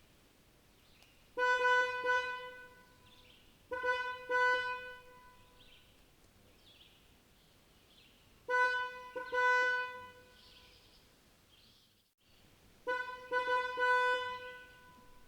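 Distant car horn honking in four bursts of several quick toots each, with faint bird chirps between the bursts.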